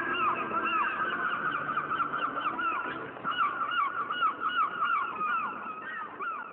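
A flock of birds calling: many short, arching calls overlapping densely, easing off a little near the end.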